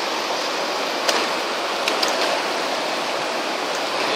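Steady rush of a fast whitewater river, with a few light clicks about one and two seconds in.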